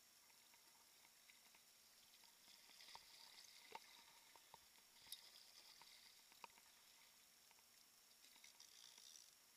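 Near silence: faint splashing and dripping of a kayak paddle in the water, with a few light clicks.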